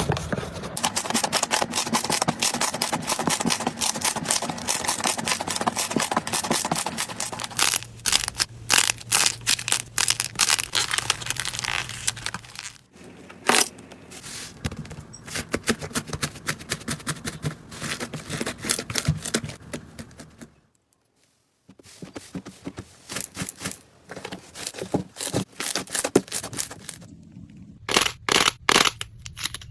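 Slime being squeezed, poked and stretched by hand, making dense crackling and popping clicks. The crackle thins out partway through, stops briefly for about a second, then returns, ending in a quick run of sharp pops.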